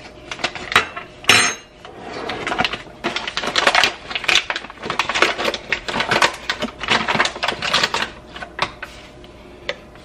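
A bag of coffee crinkling and rustling as it is handled and opened, a dense crackle of many small clicks. About a second in there is one sharp knock, like a metal spoon set down on the counter.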